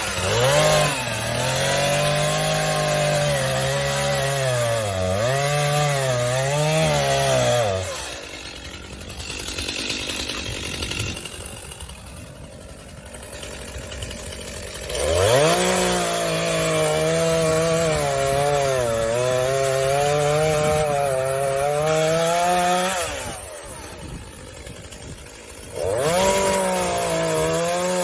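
Stihl MS 251 C two-stroke chainsaw revved up and cutting wood, its engine note wavering as it works, three times: it drops back to a quieter idle about 8 seconds in and again about 23 seconds in before revving up again.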